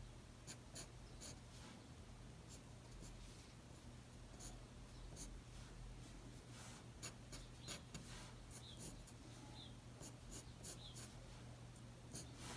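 Faint pencil scratching on paper: many short, irregular sketching strokes over a steady low hum.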